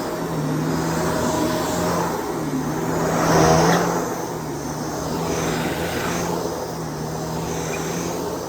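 Shark DuoClean PowerFins vacuum cleaner running as it is pushed over the floor: a steady motor hum under a broad rush of suction noise. It swells louder for about a second around three seconds in.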